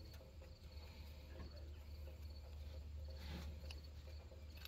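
Quiet outdoor ambience: faint insects chirping in a steady pulsing pattern over a low, steady hum, with a few faint clicks.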